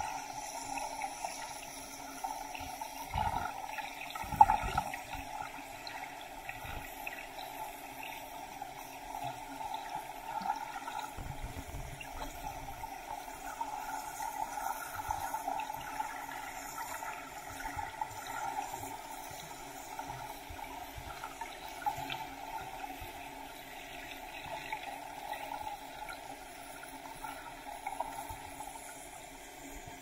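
Muffled underwater water noise picked up through a sealed waterproof camera housing, a steady wash with a few low thumps about three to five seconds in and again around eleven seconds.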